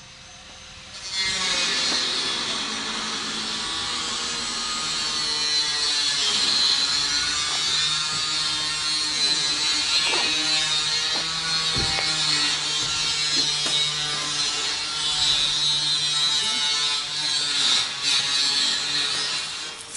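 A small motor running steadily, starting abruptly about a second in, its pitch wavering slightly.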